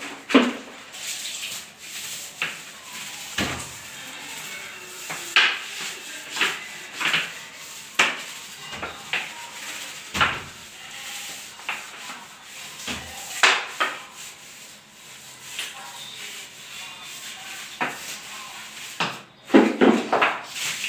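Scrubbing and rubbing on a bathroom surface during cleaning, with irregular knocks and clatters from handling, a cluster of them near the end.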